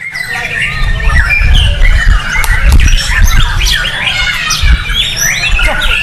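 White-rumped shama (murai batu) singing a rapid, varied song of quick whistled and harsher notes in close succession, over a steady low rumble.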